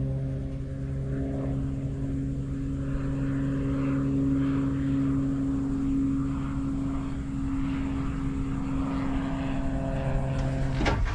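Steady mechanical drone of an engine or motor running at constant speed, a low hum with overtones holding one pitch, cutting off near the end with a couple of sharp clicks.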